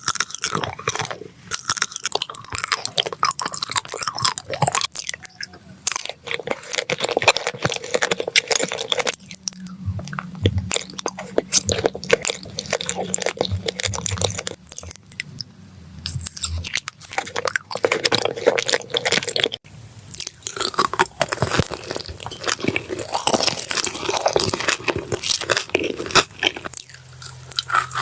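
Close-up chewing and biting of crisp food, a dense run of crunches and crackles with a few short pauses.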